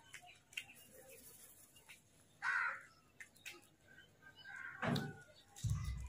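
House crows cawing: one loud harsh caw about two and a half seconds in and a second, weaker one near five seconds, over faint scattered clicks. A low thud and rumble come near the end.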